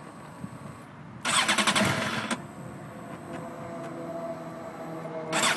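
2008 Suzuki GSX-R 750 inline-four engine idling unevenly, blipped up briefly about a second in and again near the end. The uneven, unusually high idle is not its normal idle, a hot-restart running problem after the bike sat following a long ride.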